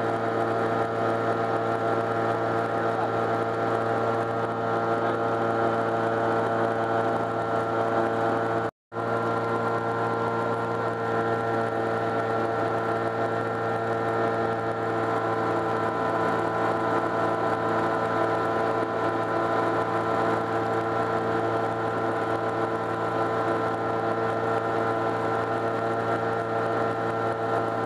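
Sky Arrow light aircraft's engine and propeller running at steady cruise power, a constant drone heard from inside the cockpit. The sound cuts out for an instant about nine seconds in, then resumes unchanged.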